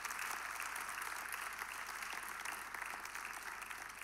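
An audience clapping steadily, easing off a little near the end.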